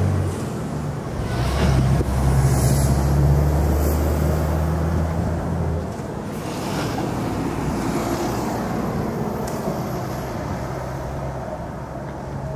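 Low, steady engine rumble of a motor vehicle. It swells about a second and a half in and eases off after about six seconds.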